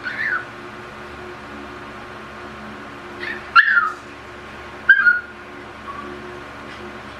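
Pomeranian puppy giving short, high-pitched yips that fall in pitch: one at the start, a quick cluster about three and a half seconds in, another about five seconds in, and a faint one just after.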